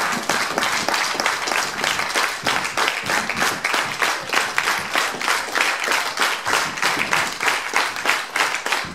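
Audience applauding, clapping together in time at about three claps a second.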